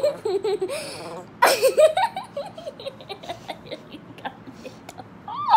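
Laughter in short, choppy bursts near the start and again about a second and a half in, with a high voice rising and falling near the end.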